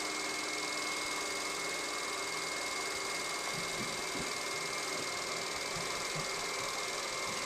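Projector running: a steady fan-like whir with a thin, steady high whine over it.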